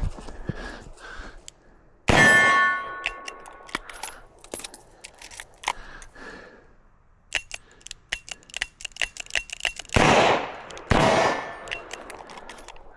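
Three revolver shots from a Smith & Wesson 627. The first comes about two seconds in and is followed by a ringing steel target; the other two come a second apart near the end. In between are small, quick metallic clicks and rattles from reloading the cylinder.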